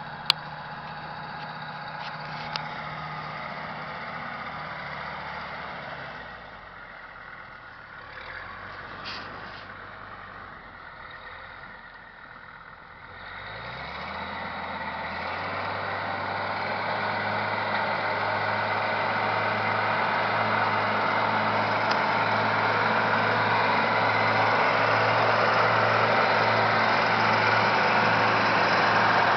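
Kubota ME 5700 tractor's diesel engine running under load while pulling a plough through wet meadow ground. It fades as the tractor draws away, then rises in pitch about halfway through and grows steadily louder as the tractor comes close. A couple of sharp clicks are heard near the start.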